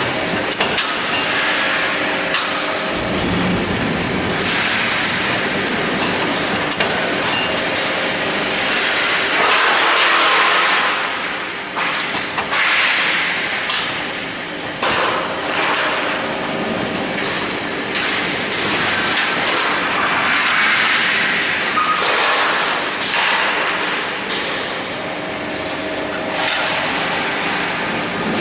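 CNC angle-steel punching line running: steady industrial machine noise with a hum and scattered knocks.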